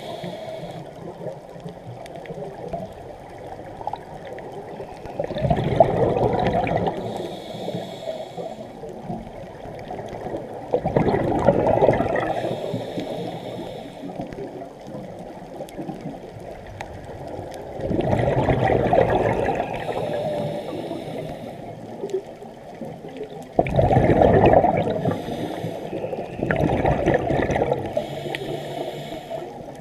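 A scuba diver's exhaled bubbles gurgling, heard underwater through a camera housing: five bursts of a second or two each, about every five to six seconds, with a steady low wash of water between them.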